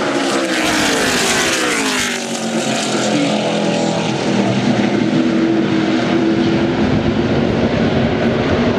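NASCAR Nationwide Series stock cars' V8 engines running at speed in practice. One car passes close with its engine note dropping in pitch during the first two seconds or so, then other cars keep running at a steady pitch.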